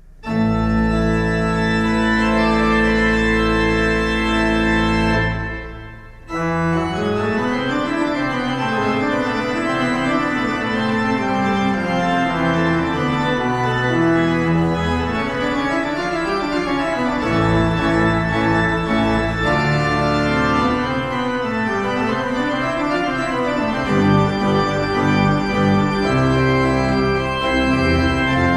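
Organ postlude after the benediction: a loud held chord that breaks off about six seconds in, then a moving piece of sustained chords over a winding lower line.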